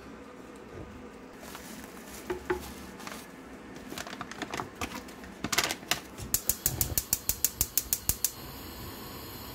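Gas stove burner's spark igniter clicking rapidly, about seven clicks a second for two seconds as the knob is turned, then the burner lights and a steady hiss of the flame follows. Before it, scattered knocks and rustling as a wooden spoon stirs the pan and a seasoning packet is shaken in.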